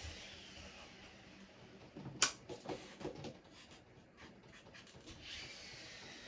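Flat iron working hair: soft hissing that fades over the first second and returns near the end, with a sharp click about two seconds in and lighter clicks and taps after it.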